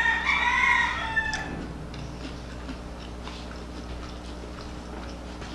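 A rooster crowing once, a single call of about a second and a half, followed by a faint steady hum.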